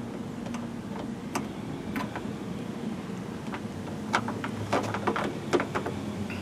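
Sharp metal clicks and taps as a replacement door lock cylinder and its parts are worked into a truck door: a few scattered clicks, then a quick cluster in the second half, over a low steady hum.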